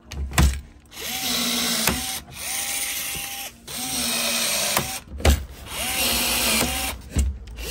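Milwaukee cordless blind rivet tool setting aluminium pop rivets through a plastic front splitter. Its motor whirs in about five short runs of roughly a second each, each starting with a brief rising whine, with a few sharp snaps between runs as rivet stems break off.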